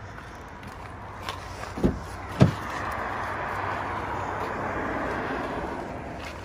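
Car door being opened: two short clunks about two seconds in as the latch releases and the door swings open, followed by a steady rushing noise.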